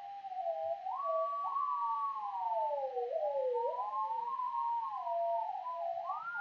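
Pure sine tone from AudioMulch's oscillator, gliding up and down in pitch as its frequency slider is dragged. A stereo delay repeats it, so a delayed copy trails each glide and two pitches overlap.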